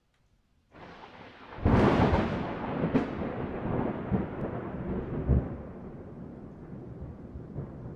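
Thunderstorm: a steady hiss of rain comes in just under a second in, then a loud thunderclap about a second and a half in rolls on and slowly fades, with a second sharp crack and further low rumbles after it.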